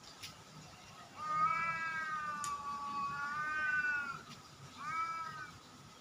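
Domestic cat yowling: one long wavering call of about three seconds, then a shorter call about half a second later.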